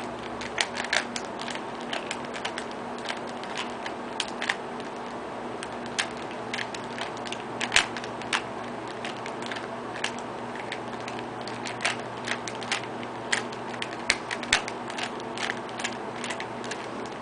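Plastic Rubik's Cube layers being twisted by hand, clicking and clacking irregularly, several turns a second, over a steady low hum.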